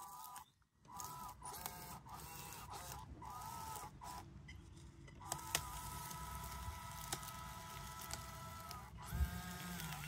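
3D-printed RC bulldozer's electric drive motors whining, starting and stopping in short spurts and then running steadily for several seconds as it crawls over sand, with a low rumble of gears and tracks underneath. There is a sharp knock near the end.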